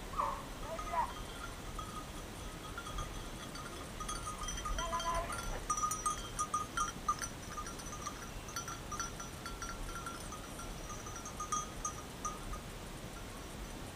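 Hunting dogs baying in the distance, with short, repeated cries that bend in pitch, over a faint tinkling like the bells worn by hunting dogs.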